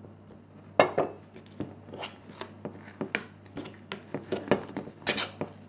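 A utensil knocking and scraping against a bowl in quick, irregular taps, stirring glue slime as more borax solution is mixed in to stop it sticking.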